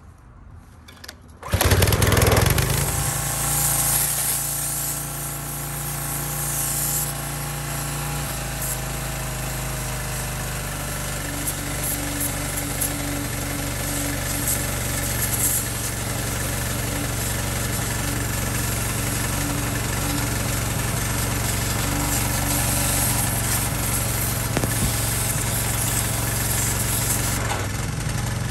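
Craftsman gas pressure washer's small engine starts suddenly about a second and a half in and then runs steadily, its note changing about eight seconds in. The hiss of the water jet from the wand blasting paint off a brake caliper runs with it.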